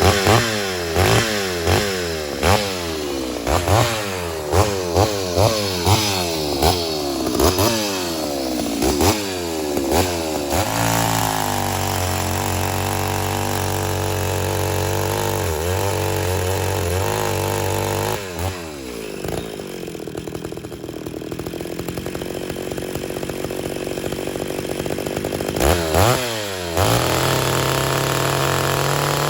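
Ported Homelite Super XL-925 82cc two-stroke chainsaw on its stock muffler, blipped to high revs about once a second for the first ten seconds, then held at a steady high speed. Midway the pitch drops for several seconds, then it revs up twice and runs at a steady high speed again.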